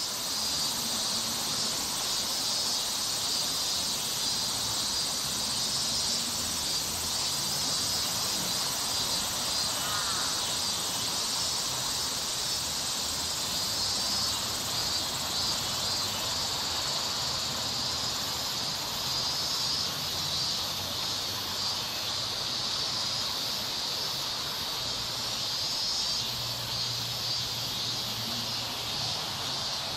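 Steady, dense chorus of summer insects shrilling without a break, with a faint low hum underneath.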